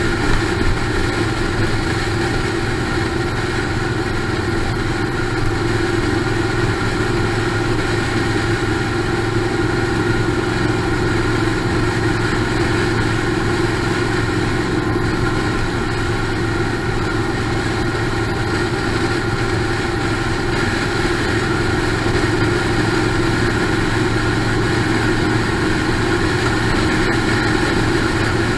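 Motorcycle engines running steadily at cruising speed, with a constant rush of wind and road noise and no change in pitch.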